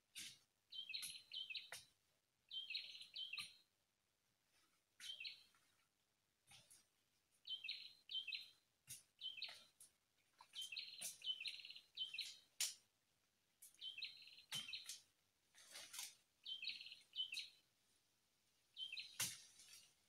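Young Horsfield's babbler (pelanduk semak) chirping: short clusters of high notes repeated every second or two, with a few sharp ticks mixed in.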